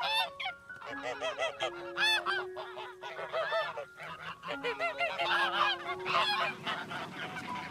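Greylag goose honking: bursts of short, nasal calls repeated about once a second.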